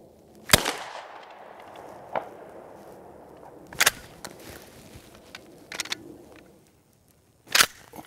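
A shotgun shot about half a second in, fading out over a second or two, then shorter bursts of sharp clacks, one in the middle and one near the end.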